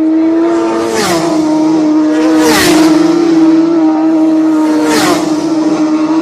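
High-revving racing engines passing at very high speed three times: about a second in, around two and a half seconds, and about five seconds in. Each pass has a sudden drop in engine pitch as it goes by, over a continuous high engine note.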